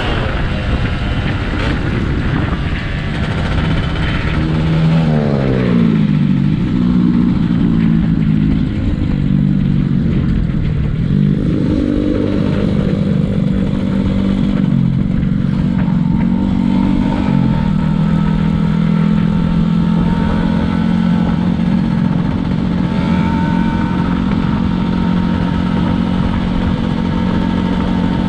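Yamaha F1ZR's 110cc two-stroke single-cylinder engine running under way. It revs up and drops back through several gear changes in the first half, then holds a steady cruise, with wind noise rushing over the microphone throughout.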